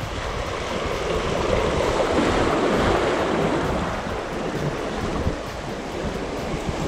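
Ocean surf washing on the shore, swelling to a peak a couple of seconds in and then easing off, with some wind on the microphone.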